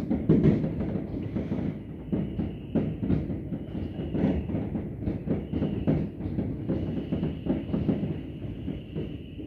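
Many fireworks going off at once: a dense, unbroken rattle of bangs and booms, heard through a window pane.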